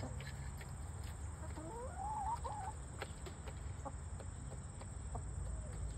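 Domestic hens clucking, with one hen giving a long wavering call about two seconds in, among scattered light clicks.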